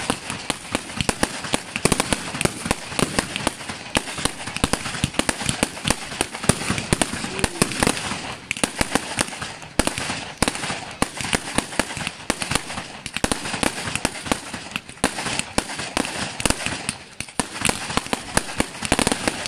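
Fireworks display: aerial shells bursting in a rapid, continuous run of bangs and crackles, with only brief lulls.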